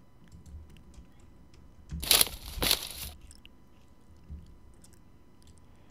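Two crunching footstep sounds about half a second apart, played back as foley for heavy steps after a landing, with faint mouse and keyboard clicks around them.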